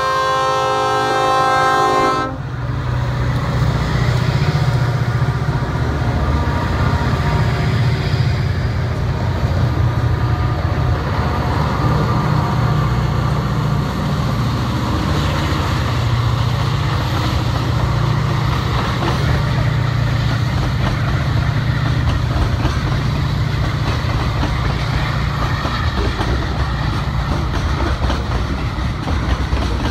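Diesel locomotive horn sounding a chord that cuts off about two seconds in, then the diesel locomotives and a long string of tank cars rolling close past, a steady low engine drone over the rumble and clatter of wheels on rails.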